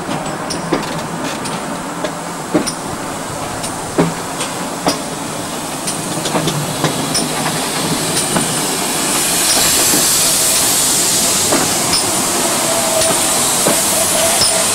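GWR 2-6-2 tank steam locomotive and its coaches moving slowly past at close range, with irregular clicks and knocks of wheels over rail joints. About nine seconds in a loud steady steam hiss sets in as the engine comes alongside, and near the end a steady whining tone joins it.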